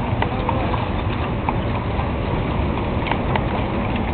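Horses' hooves clip-clopping on pavement, many hoofbeats landing irregularly, over a steady low rumble.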